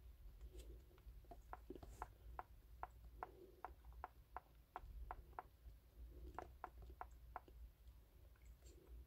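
Faint quick clicks from a diagnostic tablet's touchscreen as its menu pages are flipped, about three a second. They come in two runs with a pause of about a second between them, over a faint low rumble.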